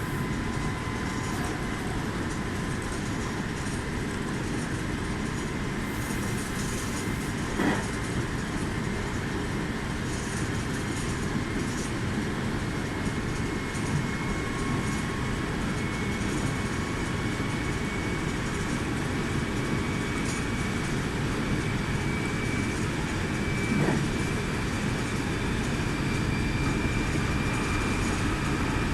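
Meitetsu 2000 series μSKY electric train running along the line, heard from inside at the front: a steady rumble of wheels on rail. A faint high motor whine rises slowly near the end, and there are two sharp knocks, about 8 and 24 seconds in.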